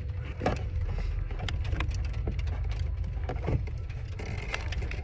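Scattered clicks and knocks of hands working on a car's rear light assembly, over a low steady rumble.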